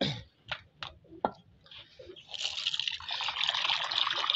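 A few short knocks, then about two seconds in tap water starts running and splashing into a terracotta water bowl, filling it.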